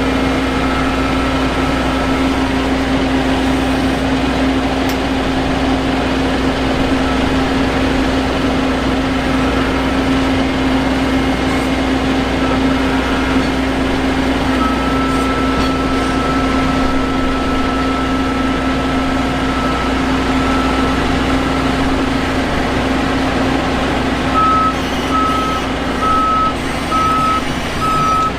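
Combine harvester running steadily in the wheat, with a constant low hum and whine. Near the end a warning alarm beeps about once a second.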